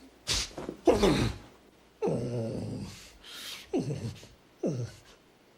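A dog whimpering and crying: breathy cries that fall in pitch, then two short falling whines near the end.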